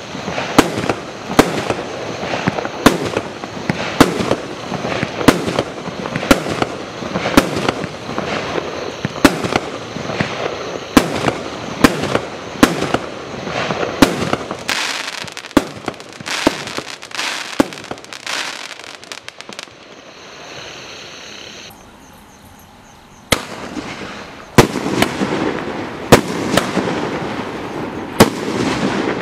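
Primed Pyrotechnics 1.3G firework barrage cakes firing: a run of sharp bangs, about one to two a second, with a dense rough noise between them. The bangs stop about twenty seconds in, and after a short lull the next cake starts firing at a similar pace.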